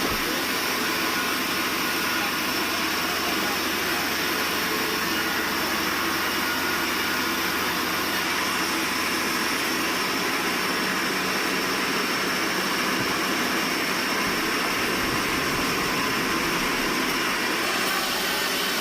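Sawmill machinery running steadily: a dense, unbroken mechanical noise with a constant high-pitched whine.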